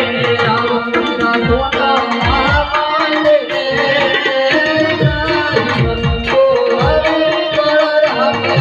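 Live stage music: a hand drum plays a quick rhythm of deep bass strokes that slide down in pitch, over a sustained melody.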